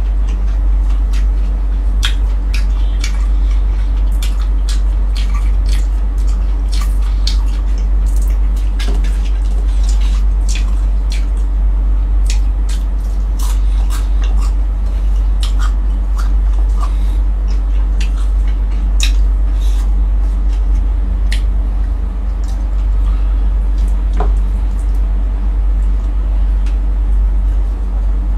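Close-up eating sounds: wet chewing and lip smacks, with many short sharp clicks, as a person eats fried galunggong (round scad) and rice. A loud steady low hum runs underneath.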